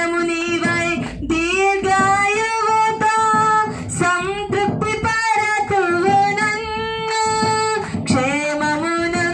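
A woman singing a Christian hymn solo into a handheld microphone, holding long notes in short phrases.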